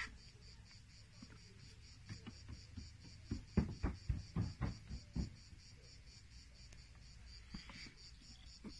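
Insects chirping in a steady, evenly pulsed high trill. About halfway through comes a quick run of half a dozen dull thumps, louder than the chirping.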